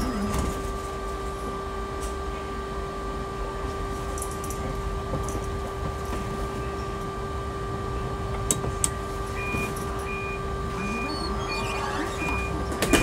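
Heathrow ULTra pod's steady electric hum while it stands at the station, two held tones over a low rumble. In the last few seconds, six short high beeps sound at even spacing, about one every 0.7 seconds.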